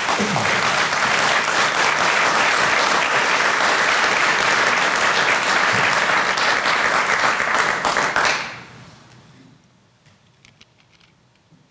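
Audience applauding steadily for about eight seconds, then dying away. Faint small clicks follow in the quiet room.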